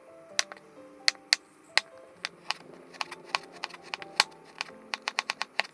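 Kitchen knife knocking on a cutting board in irregular sharp strokes, speeding into a quick run of chops near the end, over soft background music.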